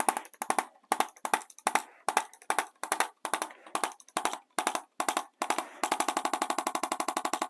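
ArthroStim electric adjusting instrument tapping along the spine: short bursts of rapid-fire taps, two or three bursts a second, then an unbroken run of taps at about a dozen a second for the last second and a half.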